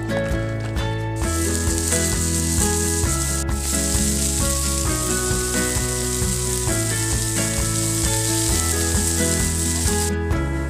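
Small whole fish sizzling on a hot metal grill plate: a steady hiss that starts about a second in, breaks for an instant about a third of the way through, and cuts off shortly before the end. Background music plays underneath.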